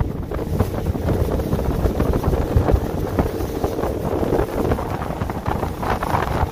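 Motorboat under way: the engine runs steadily under heavy wind buffeting on the microphone and the rush of the hull through the water.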